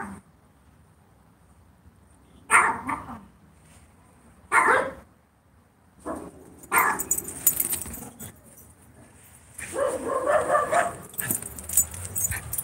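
German Shorthaired Pointer barking: single barks about two seconds apart, three times, followed by a longer, rougher run of noise about ten seconds in.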